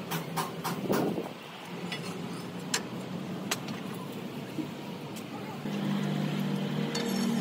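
An engine running steadily with a low hum, louder from a little before the last two seconds. A quick run of sharp knocks comes in the first second, with a few single knocks later.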